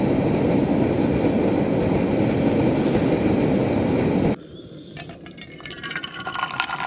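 Portable gas canister stove burning under an aluminium camping kettle of milky tea at the boil: a steady rushing that stops abruptly about four seconds in. Near the end, tea is poured from the kettle into a steel mug, a splashing stream that grows louder.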